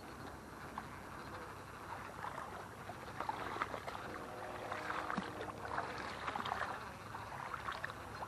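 Faint water splashing and lapping with light, irregular clicks, growing busier a couple of seconds in.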